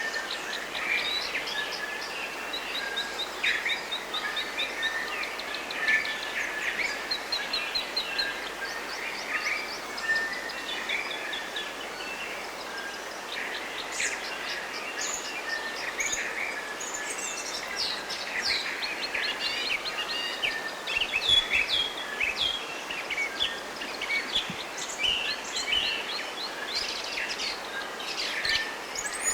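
Several birds singing in the bush, with many short chirps and quick high trills that grow busier about halfway through, over a steady background hiss.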